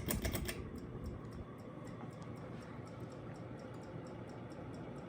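Ceiling fan switched up to high speed: a short rattle of clicks at the start, then a steady whir of motor and blades with a light tick repeating several times a second.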